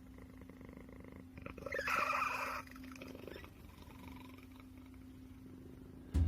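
Scottish Fold cat snoring: a gruff, low breathing snore throughout, with one louder, rougher snore about one and a half to two and a half seconds in.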